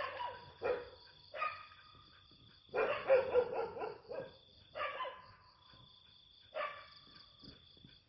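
A dog barking in short bouts, several barks close together about three seconds in, over crickets chirping steadily.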